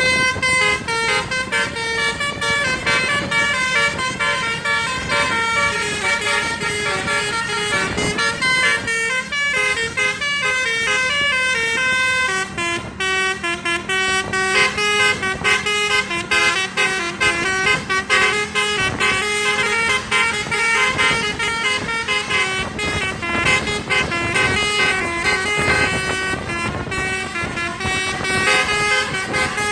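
Basuri multi-tone 'telolet' bus horn playing a quick melody, its notes stepping up and down without pause, over a steady low hum.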